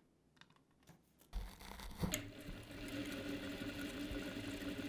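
Jack 9100BA industrial lockstitch sewing machine starting up about a second in and running steadily at its low speed setting of 4, a quiet even hum.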